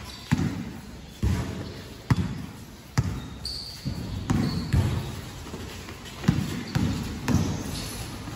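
A basketball being dribbled on a gym floor: a steady run of thuds, about one every second or a little faster, echoing in the gym.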